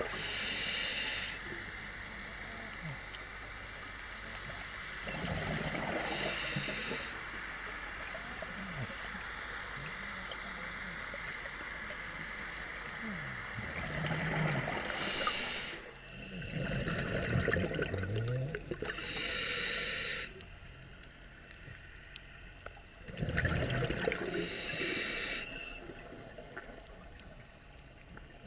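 Scuba diver breathing through a regulator, heard through an underwater camera housing: five breaths, each a short hiss of inhalation and a burst of gurgling exhaled bubbles, over a steady underwater hiss.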